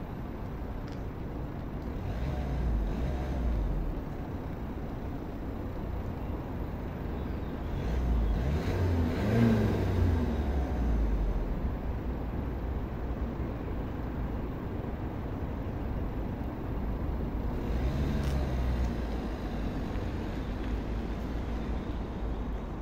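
Peugeot 308 1.6 BlueHDi 100's four-cylinder turbodiesel, heard from behind at the exhaust, running with several revs. The biggest rev comes about nine to ten seconds in and another near eighteen seconds, as the car moves off.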